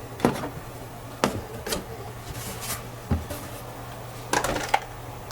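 Scattered light clicks and knocks, about six in all with a small cluster near the end, as of small toy cars being handled and set down, over a faint steady hum.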